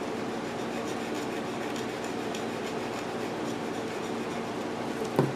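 A thin strip of Scotch-Brite pad rubbed back and forth inside a miter saw motor's brass brush holder to scrub out grime: a faint, scratchy rubbing over a steady hum.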